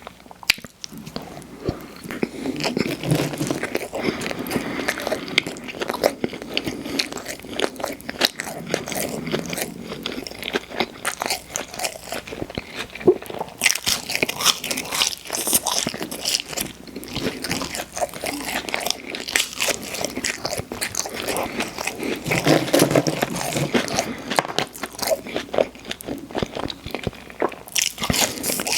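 Close-miked mouth sounds of eating fast food: biting and crunchy chewing, with a dense run of small wet clicks and crackles throughout.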